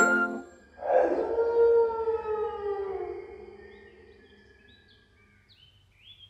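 Eerie sustained howling tone with a hiss, an animated cartoon's spooky sound effect, swelling about a second in and slowly fading over the next few seconds; faint short high notes step upward near the end.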